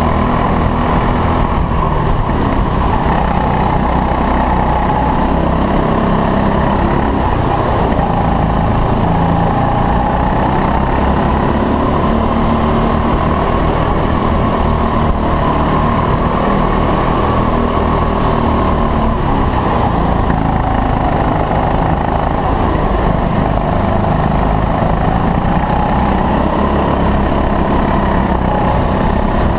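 Rental kart's 6.5 PS engine running hard, heard from onboard the kart, its pitch falling and rising again several times as the kart slows and accelerates around the track.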